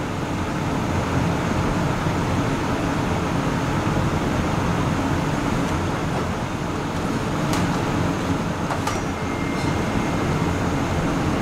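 Steady rushing noise of a commercial kitchen's ventilation and extraction fans, with a few faint clicks in the second half.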